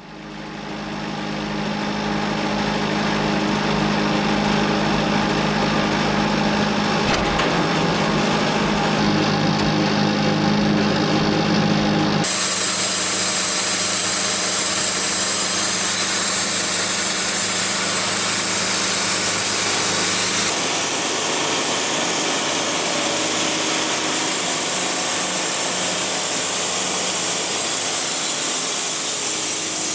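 Wood-Mizer LT70 band sawmill running, its bandsaw blade cutting a poplar log. The blade is worn and due for changing. The sound fades in, then about twelve seconds in turns abruptly to a harsher hiss, and shifts again a little past twenty seconds.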